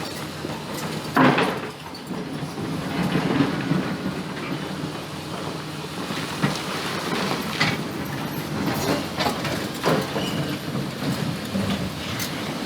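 Excavator's diesel engine running steadily while it digs in a stony riverbed, with sharp knocks of stone against the bucket several times.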